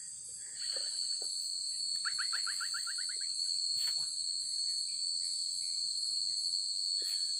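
Night insects singing in a steady, high-pitched chorus, with one shrill trill joining about half a second in. Around two seconds in comes a quick run of rapid chirps that rises in pitch for about a second.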